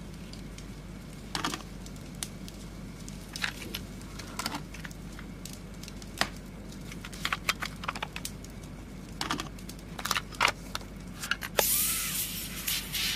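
Irregular short clicks and clinks over a low steady hum; about eleven and a half seconds in, a loud rushing noise sets in.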